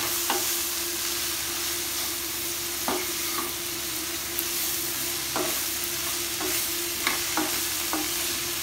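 Chopped spinach sizzling in oil in a pan as a wooden spatula stirs it, with scrapes and knocks of the spatula against the pan about once a second, over a steady hiss of frying.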